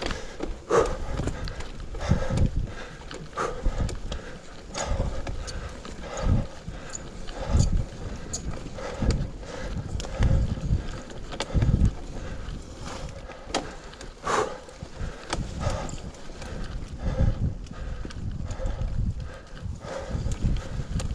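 Mountain bike riding over a bumpy, leaf-covered dirt trail: tyres rolling on soil and leaves, with irregular low thuds and clattering knocks from the bike as it jolts over the bumps.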